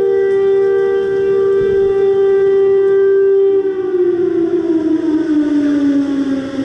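A huge town alarm siren, of the air-raid kind, sounding loudly. It holds one steady tone for about three and a half seconds, then its pitch slides slowly down as it winds down.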